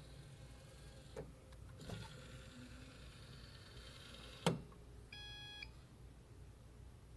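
A Rotimatic roti maker giving one electronic beep about half a second long, just after a sharp click; there are a couple of fainter clicks before it. The beep comes as the machine fails to start and keeps showing its error.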